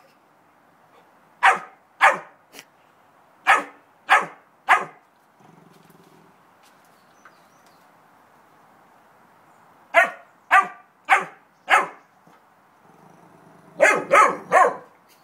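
Newfoundland puppy barking in short, sharp, high barks in three runs: five over the first five seconds, four about ten seconds in, and three near the end.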